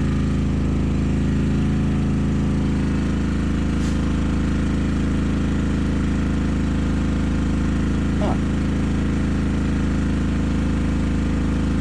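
Fremont MEP-831A single-cylinder diesel generator running steadily at constant speed under a heavy electrical load from greenhouse grow lamps and a heater.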